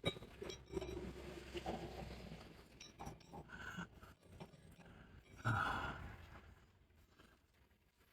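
Light metallic clinks and knocks of hand tools and small steel parts being handled during repair work, with a louder clink about five and a half seconds in.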